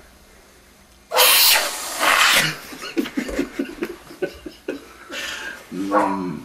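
Aerosol can of whipped cream spraying in two loud sputtering hisses, about a second in and again a moment later, followed by a person's voice.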